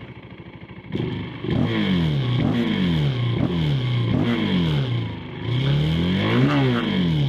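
2025 KTM 390 SMC-R's single-cylinder engine with a Stage 2 DNA intake filter, ridden hard. It runs quietly off the throttle at first, then opens up about a second in. Its pitch then jumps up and slides down again several times, with one longer rise and fall near the end.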